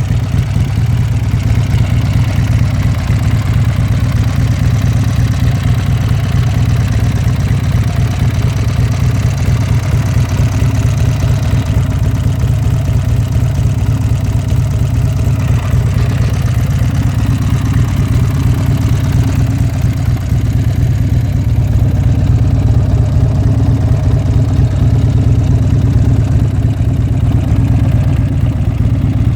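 Buell X1 Lightning's V-twin engine idling steadily at an even, low note.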